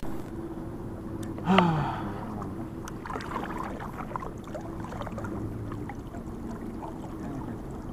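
Water lapping and small knocks against a kayak hull as it drifts, with one short sigh from the kayaker about one and a half seconds in, falling in pitch.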